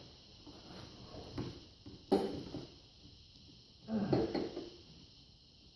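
Metal exhaust pipes of a Yoshimura RS2 system knocking and scraping as the mid pipe is worked over the header pipe. There is a sharp knock about two seconds in and a longer clatter about four seconds in.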